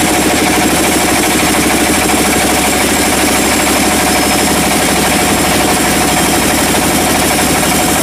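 Large vertical band sawmill running steadily while ripping a teak slab: constant loud machine and blade noise with a fast rattling texture and a steady hum.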